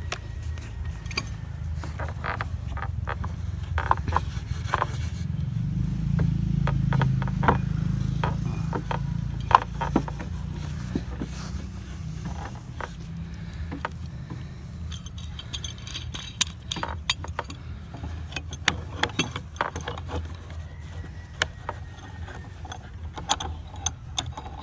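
Metal clanking and clicking as clamps are fitted and tightened on a log on a portable sawmill, in scattered irregular knocks. A low steady rumble runs underneath and swells a few seconds in.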